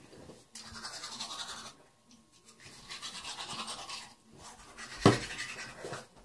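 Manual toothbrush scrubbing teeth in two short stretches of rhythmic brushing strokes, with a sharp knock about five seconds in.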